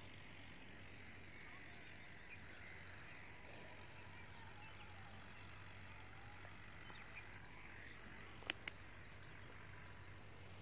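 Faint rural outdoor ambience: a steady soft hiss with scattered faint chirps of distant birds or frogs, and two short clicks about eight and a half seconds in.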